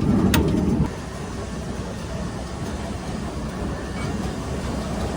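Grain receiving-pit machinery running steadily, drag conveyor and elevator, as the trailer's hopper gate is closed. A louder rumble cuts off sharply under a second in, with a single sharp metallic click just before.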